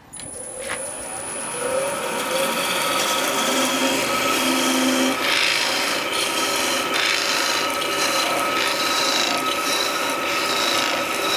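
A wood lathe starts up, and a parting tool cuts into the spinning exotic hardwood at the foot of a goblet: a steady scraping hiss that builds over the first couple of seconds and then holds.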